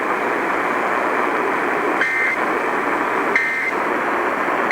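Steady hiss of radio static from a poorly received broadcast, with short, high, warbling Emergency Alert System end-of-message data bursts: the first comes about two seconds in, the second a little over a second later, and a third starts right at the end. These bursts close out the EAS test.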